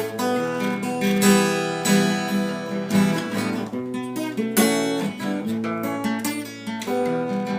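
Acoustic guitar strumming chords in a steady rhythm, with the notes ringing between strokes. This is an instrumental passage with no vocals.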